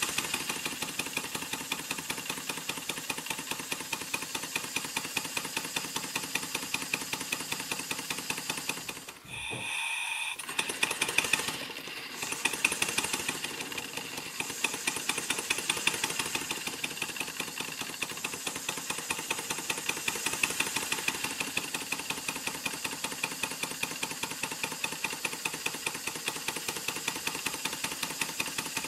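Model beam steam engine running under a centrifugal flyball governor, with a rapid, even rhythmic beat. About nine seconds in it stops briefly. It then starts again with a few louder, uneven beats as the governor hunts, and settles back to a steady speed.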